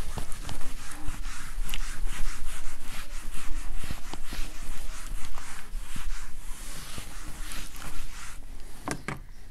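Whiteboard eraser rubbing across a whiteboard in repeated scrubbing strokes as the marker writing is wiped off, growing quieter near the end.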